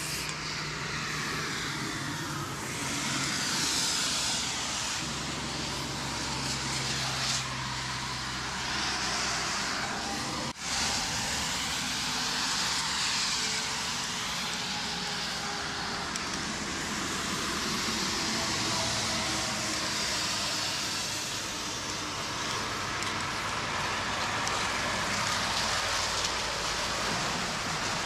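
Aerosol spray-paint can hissing as paint is sprayed onto a concrete wall, over steady road traffic, with vehicles swelling past and a low engine hum for several seconds in the first half.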